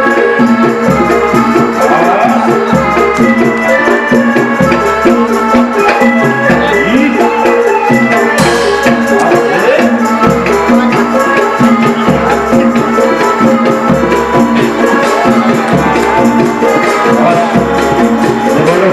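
Loud, continuous traditional music with shaker-like rattling percussion over a repeating pattern of pitched notes and a steady low beat, the kind of ensemble that accompanies a can macanan performance.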